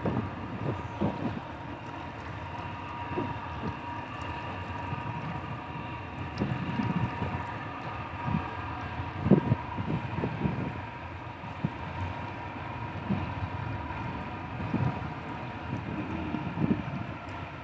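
Wind buffeting the microphone in uneven gusts, the strongest about nine seconds in, over a steady distant drone from a departing passenger ship's engines.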